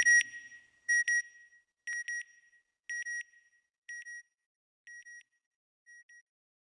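Electronic double beeps in the soundtrack: a high tone sounding in quick pairs about once a second. They grow steadily fainter over about six seconds, like a fading echo.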